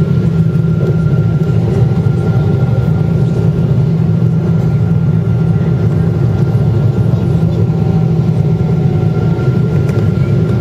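Steady cabin noise of a Boeing 777-200ER climbing after takeoff: a loud, even low rumble from its GE90 engines and the airflow. A thin steady high tone runs over it.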